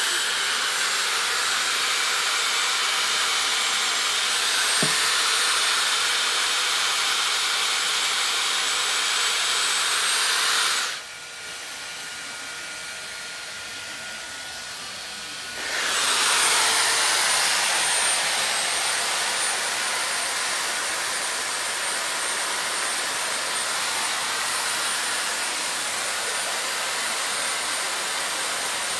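Chainsaw cutting into a block of ice, a steady running whine. It eases to a quieter level for about five seconds in the middle, then bites in again.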